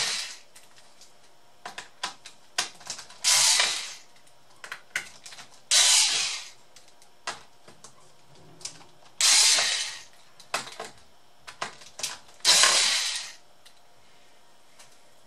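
Ratcheting screwdriver clicking as it backs screws out of a laptop's plastic bottom cover. It comes in four bursts of about a second each, a few seconds apart, with small clicks and taps between them.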